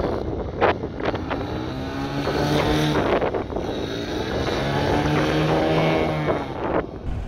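ICON A5 amphibious light aircraft's Rotax flat-four engine and pusher propeller at high power as it skims across the water on its take-off run, with the hiss of spray. The engine tone rises and falls twice as the plane passes.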